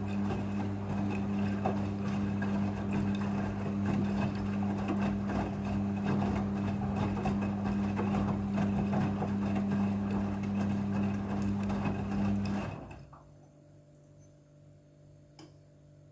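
Midea front-loading washing machine running during the rinse cycle, a steady motor hum with a rushing noise over it, which cuts off suddenly about thirteen seconds in, leaving only a faint hum.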